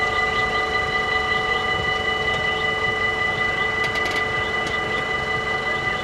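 Electronic warning bells of a Dutch half-barrier level crossing ringing steadily, warning that a train is approaching. Birds chirp over them, with a few faint clicks about four seconds in as the barriers come down.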